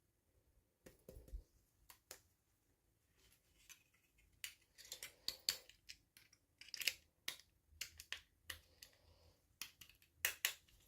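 Plastic toy packaging being handled and opened: irregular sharp clicks and crinkles, thickest in the second half.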